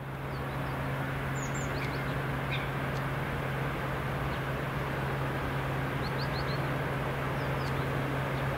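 Steady low hum and rumble of an ED4MK DC electric multiple unit approaching from a distance, with small birds chirping briefly several times.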